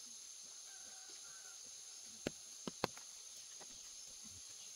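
Steady high-pitched drone of insects, crickets or cicadas, with a faint chirp about a second in and a few sharp clicks a little past halfway.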